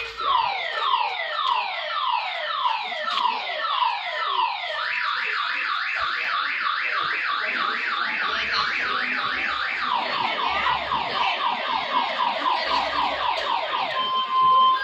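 Electronic vehicle anti-theft alarm sounding, cycling through its siren tones. For about five seconds it gives falling sweeps, about three a second. Then it switches to faster rising whoops, and after about ten seconds to quicker falling sweeps again, ending with short steady beeps.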